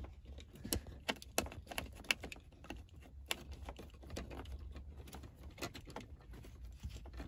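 Scattered light clicks and taps, irregularly spaced, as long screws are fed in and turned by hand into the car's centre-console radio trim.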